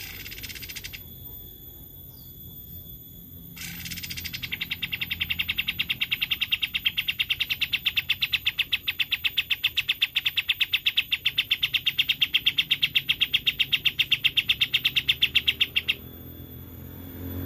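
A songbird singing a long, rapid trill of evenly repeated notes, about eight a second, that starts about four seconds in and runs for some twelve seconds, after a short burst of song near the start.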